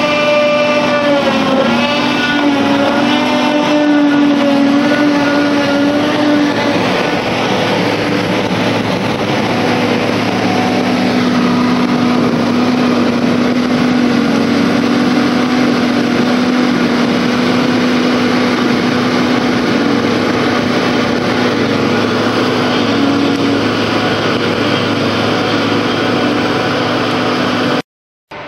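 John Deere self-propelled forage harvester at work chopping grass for silage, its engine and chopping drum running with a steady loud drone and whine, with the engine of the John Deere tractor hauling the silage wagon beside it. The pitch wavers over the first few seconds and then holds steady. The sound cuts out briefly near the end.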